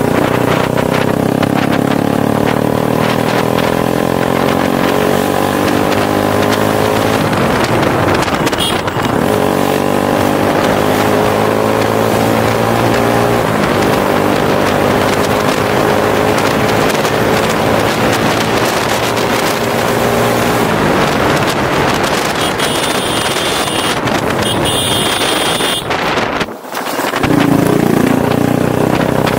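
Motorcycle engine running under way, its pitch drifting slowly up and down with the throttle. About 26 seconds in it drops off sharply for a moment, then picks up again.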